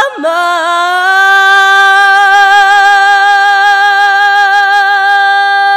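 A woman singing one long held note, loud, with a gentle vibrato after a short wobble in pitch near the start.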